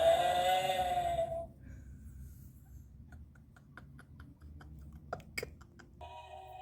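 A wavering electronic tone with a slow vibrato cuts off about a second and a half in and comes back near the end. In the quiet between, a run of light clicks and taps.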